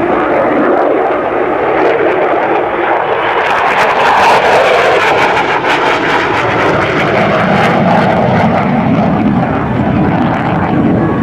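F-16 Fighting Falcon jet passing by. Its engine noise climbs in pitch and level to a peak about four seconds in, with a ragged crackle at its loudest, then slides steadily lower in pitch as it moves away.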